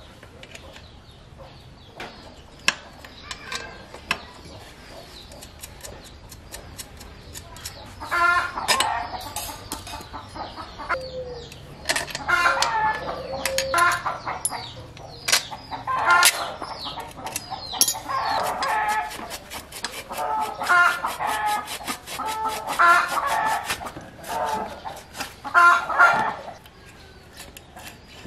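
Bird calls in repeated bouts from about eight seconds in, mixed with sharp metallic clicks of hand tools working on a bicycle's brake and seat fittings.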